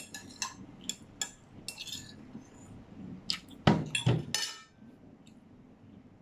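A metal fork clinks and scrapes against a plate as the last food is scooped up, with a string of short sharp clicks. About halfway through comes a louder clatter of the plate and fork on the table as the plate is put down, and then the clatter stops.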